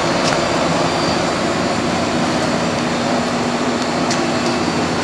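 Thomas A. Edison central air conditioner's outdoor condensing unit running steadily: the compressor's hum with a few low steady tones under the even rush of air from the condenser fan, whose motor is a replacement taken from a portable air conditioner. Running normally.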